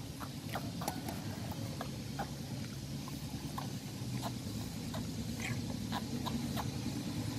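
Two baby macaques sucking milk from plastic feeding bottles: a scatter of soft, irregular sucking clicks over a low steady hum.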